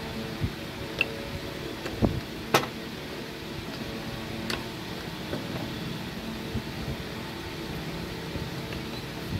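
Hung Tuan automatic agarbatti making machine running with a steady mechanical hum, on trial while its pressure is being turned down. Several sharp clicks and knocks come over the hum, the loudest about two and two and a half seconds in.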